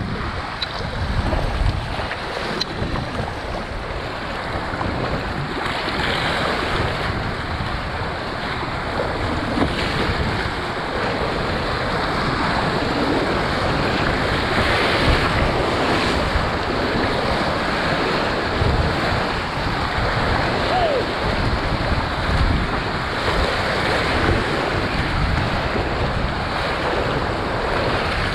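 Rushing whitewater of a river rapid heard from the deck of a kayak, with choppy waves splashing around the bow. Wind buffets the microphone in uneven gusts. The rush grows a little louder about five seconds in and then holds.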